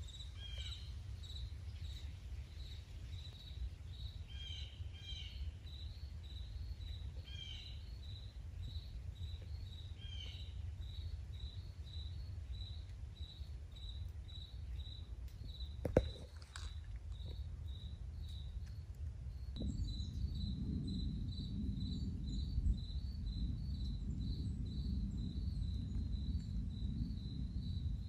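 Woodland ambience: an insect chirping steadily in a high, even pulse about twice a second, with a few short bird calls in the first ten seconds. A low rumble underlies it and grows louder about two-thirds of the way through, and there is a single sharp click about halfway.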